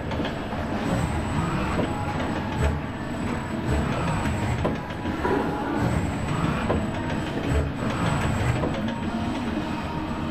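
ABB industrial robot arm moving through its work cell: a steady mechanical rumble with scattered light knocks and clicks, and a faint high whine that comes and goes.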